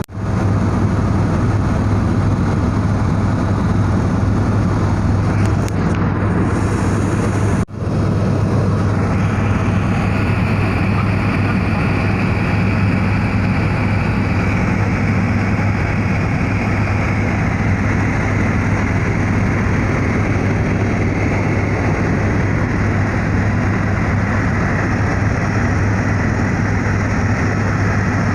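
Helicopter in flight heard from inside the cabin: loud, steady engine and rotor noise with a constant low hum, breaking off for an instant about eight seconds in.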